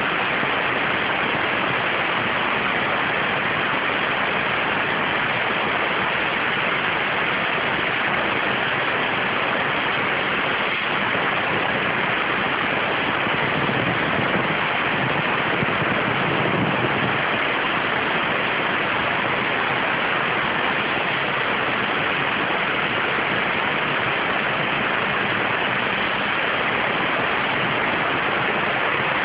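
CNC waterjet cutting thin 0.6 mm stainless steel sheet: a steady, even hiss of the high-pressure water jet.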